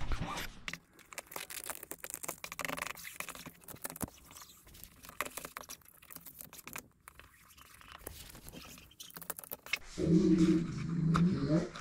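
Vinyl wrap film being lifted and smoothed over a bumper with a plastic squeegee: a run of light scrapes, crackles and clicks. Near the end a short, low, sustained vocal sound comes in.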